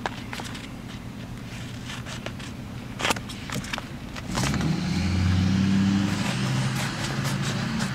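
Scattered short scrapes and taps, then about four seconds in a motor vehicle's engine comes in, swells for a second or two and keeps running steadily.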